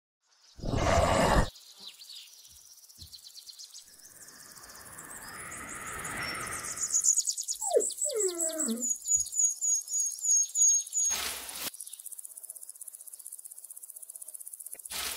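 Layered animation sound effects: a short loud burst of noise near the start, then fast, high repeated chirps over a swelling hiss. About halfway through come a few squeaky calls that glide up and down, and there is another brief burst of noise a few seconds before the end.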